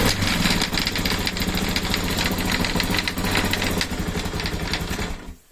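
Yamaha TT-R250's single-cylinder four-stroke engine running with a knock from the right side of the gearbox, then shut off abruptly near the end. The knock comes from a part on the right side that has come unscrewed from its bolt.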